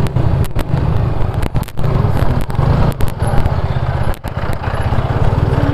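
The rider's own motorcycle running at low speed, its engine a steady low rumble heard from a camera mounted on the bike, with a few brief dips in the sound.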